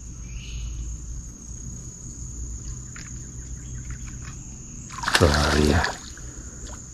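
Insects keep up a steady, high-pitched trill over a low outdoor rumble. About five seconds in, a man's voice briefly cuts in with a short, loud sound.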